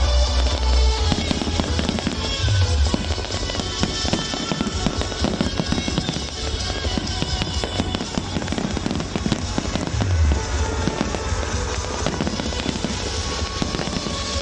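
Aerial fireworks bursting in a dense, continuous crackle, with deep booms at the start, about two and a half seconds in and about ten seconds in, and music playing underneath.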